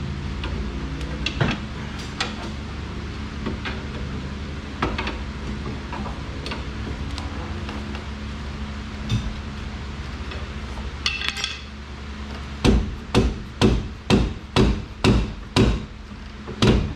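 Hammer blows on the steel rear suspension knuckle and strut of a car: a few scattered knocks, then a quick run of about seven strikes, roughly two a second, with another near the end. A steady low hum runs underneath.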